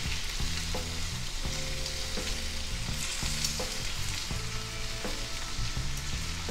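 Sauce-glazed pork chops sizzling steadily in a ridged grill pan, with a few light clicks and scrapes of tongs against the pan as the chops are turned.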